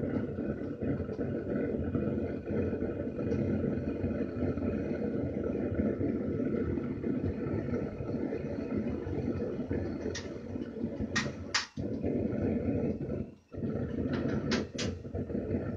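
Single-burner gas forge running on its first firing to cure the Satanite lining: the burner makes a steady low rushing noise. It dips briefly twice in the second half, with a few sharp clicks.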